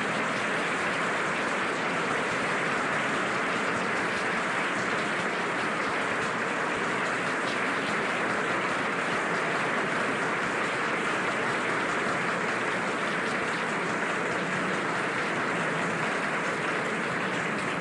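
Audience applauding, a dense, even clapping that holds level.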